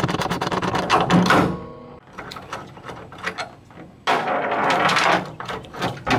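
Socket ratchet clicking rapidly for about a second and a half as it spins a nut off a Jeep TJ hood-support rod. After that come metal clanks and rattles with some ringing, loudest about four seconds in, as the wrench is set down on the steel hood and the rod is worked loose.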